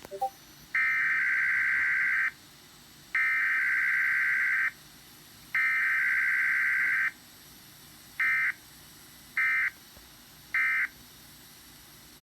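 Emergency Alert System SAME data tones: three long digital header bursts of about a second and a half each, then, from about eight seconds in, three short end-of-message bursts, each about a second apart. This is the coded part of an EAS Required Weekly Test.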